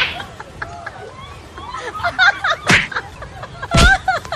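Two hard slaps or blows landing on a person's back, about a second apart, the second heavier, amid voices.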